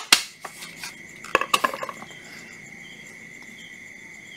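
Knocks and clicks of a cordless rotary hammer's plastic body being handled and set down on a tile floor, a few right at the start and another short cluster about a second and a half in. A faint steady high-pitched tone hangs underneath.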